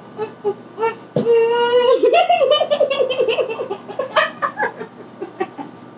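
A boy laughing hard: a long high vocal note about a second in breaks into a quick run of laughs, then trails off into short bursts of giggling.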